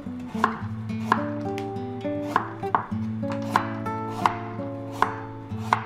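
Chef's knife slicing a carrot into rounds on a wooden cutting board: about eight sharp knocks of the blade reaching the board, a little faster than one a second, over soft background music.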